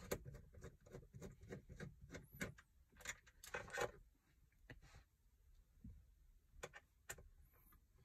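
Faint, irregular small clicks and ticks of the screws holding a car's dashboard head unit being undone, thick for the first four seconds and then sparse.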